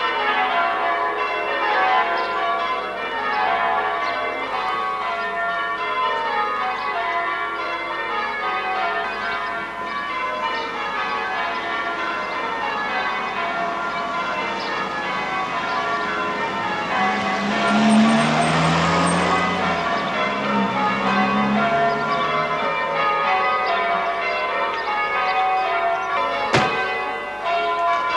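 Church bells ringing changes, a steady run of descending rounds that continues throughout. A car passes about two-thirds of the way through, and there is a sharp knock near the end.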